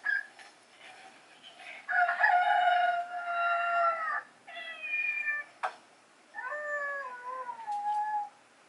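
Electronic talking-ball pet toy playing recorded animal calls from its small speaker: three drawn-out calls, the first starting about two seconds in, the second falling in pitch, the third wavering. A single sharp click falls between the second and third calls.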